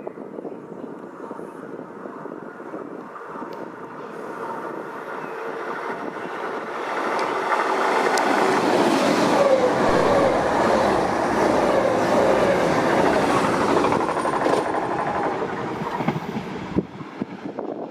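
Train passing through a railway station, its rolling noise building to a loud peak midway and staying loud for several seconds before cutting off suddenly shortly before the end.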